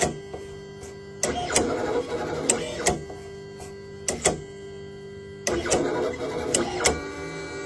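Small motors of a pen-drawing robot arm whirring in short runs of a second or two, three times, with sharp clicks among them and a steady hum in between.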